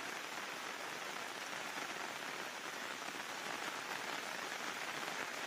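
Steady moderate rain falling on a paddy field: an even hiss of drops with no thunder or other events.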